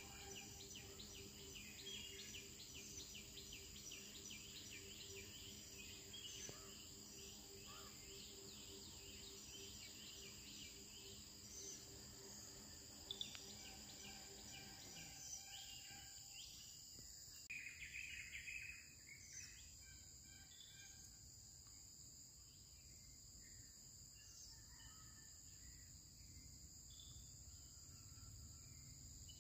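Near silence: faint countryside ambience of steady high insect trilling with scattered bird chirps and a short bird call. A faint low pulsing hum stops about halfway through.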